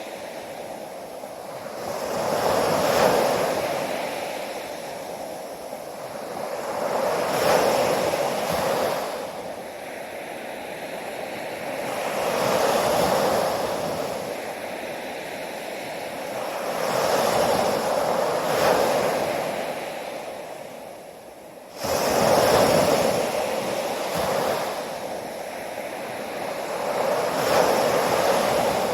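Ocean waves breaking and washing up the shore, each surge swelling and fading about every four to five seconds. One surge starts abruptly about three quarters of the way through.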